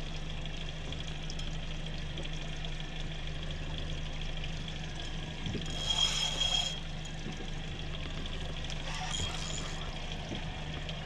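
Water sloshing and splashing at the stern of a small boat as a hooked mahi-mahi fights at the surface, over a steady low hum. A brief high-pitched whirr comes about six seconds in, and a fainter one about nine seconds in.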